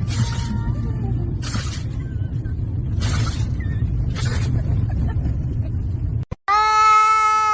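A steady low rumble with four short bursts of hissing noise about a second and a half apart. After a brief cut, a loud, long, steady-pitched yowl, typical of a cat, begins near the end.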